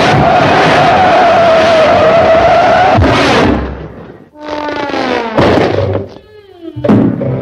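Cartoon sound effects: a loud speeding-vehicle racket for about three and a half seconds that then dies away. A descending musical glide leads into a loud crash about five and a half seconds in as Sylvester smashes through a brick wall, and a second hit comes near the end.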